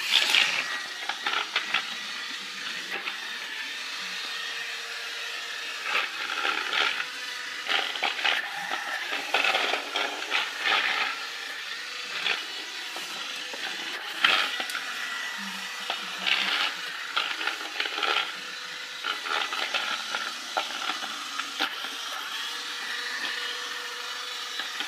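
Small electric drive motors of a two-wheeled hobby robot rover whirring steadily, with frequent louder surges every second or so.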